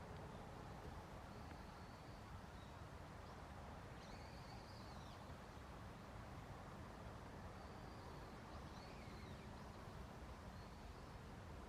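Faint wild bird calls: a few scattered high whistled notes, one longer call about four seconds in, over a steady low background noise.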